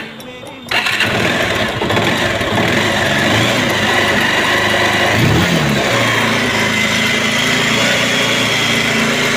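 Bajaj Pulsar 220's single-cylinder engine starting less than a second in and then idling steadily, with one brief rev about five seconds in. It runs without much mechanical noise, though the bike is burning engine oil.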